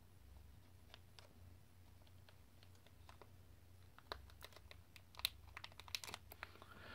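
Faint, scattered clicks and crinkles, sparse at first and more frequent from about four seconds in: a thick foil trading-card pack being cut open.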